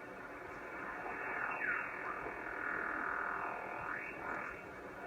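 Ham radio receiver on the 40-metre band hissing with band noise between transmissions. A whistling tone glides down through the hiss about a second and a half in, and another glides up near the four-second mark.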